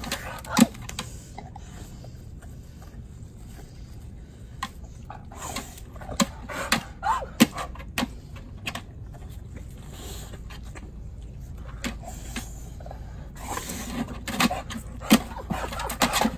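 Dog activity: scattered taps and knocks as a bulldog's paws hit a plastic balance platform on concrete, with a few short whines, the busiest stretch near the end.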